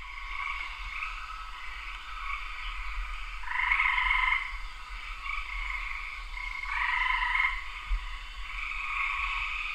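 A chorus of many frogs calling together, a steady pulsing din that swells louder twice, around the middle and again later.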